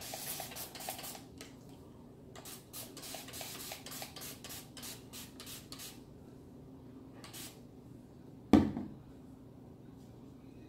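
Hand-pump water spray bottle being spritzed onto hair: a short hiss, then a quick run of short spritzes, about three a second, for a few seconds. A single thump about eight and a half seconds in, the loudest sound.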